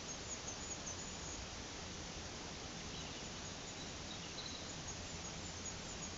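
Steady rushing of a brook and waterfall, with a few faint, high bird chirps about three to four seconds in.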